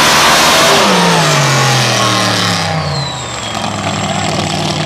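Mud drag racing car's engine at full throttle at the end of its pass, then falling in pitch and fading as the driver lifts off past the finish. A steadier, lower engine sound carries on near the end.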